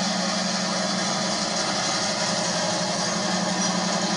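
EMD GP15-1 diesel-electric locomotive passing close by, its engine running steadily with a low drone under a wide rushing noise.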